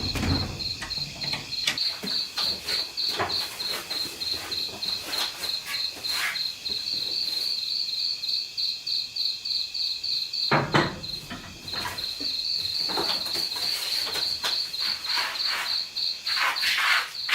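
Insect chirping: a high, even pulse repeating about four to five times a second, breaking off briefly just past the middle and then resuming. Scattered knocks and clicks run through it, with a heavier knock where the chirping breaks.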